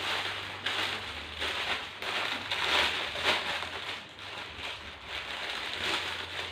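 Plastic packaging rustling and crinkling in irregular swells as a garment is handled and taken out of its bag.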